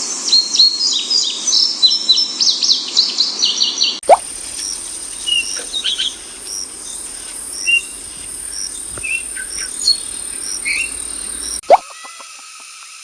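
Small birds chirping: dense, rapid overlapping chirps for the first few seconds, then sparser single chirps over a steady high hum. There is a sharp click near the end.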